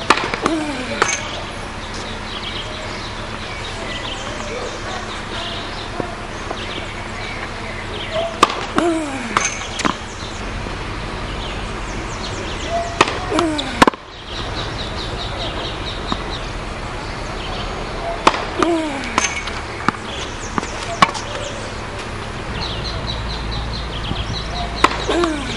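Tennis ball struck by a racket and bouncing on a hard court: sharp pops in small groups every few seconds, each group with a short sound that falls in pitch.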